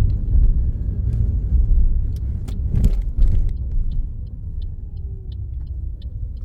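Low rumble of a car's engine and tyres heard from inside the cabin, with a few sharp knocks a couple of seconds in. From about halfway, the turn indicator ticks steadily, about three clicks a second, signalling a right turn.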